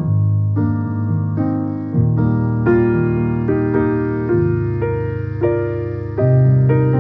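Background piano music: a gentle melody of struck notes over held bass notes.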